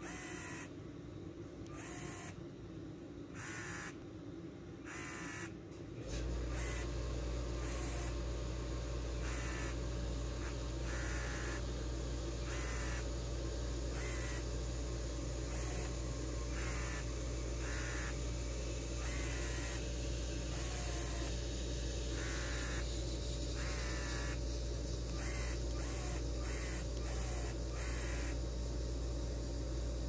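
Small LEGO Robot Inventor electric motors whirring in short bursts every second or two, the pitch shifting within each burst as they are driven back and forth. A steady low hum starts about six seconds in and continues.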